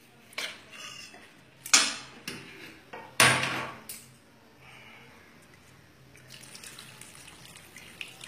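Water being poured into a kadai of half-cooked dried peas and vegetables, with sharp metal clanks of a vessel or spoon against the pan; the loudest clank comes a little after three seconds in. A fainter pouring hiss follows near the end.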